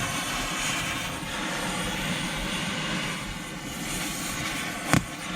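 Oxy-acetylene cutting torch hissing steadily as it cuts through a sprocket bolt, with one sharp click near the end.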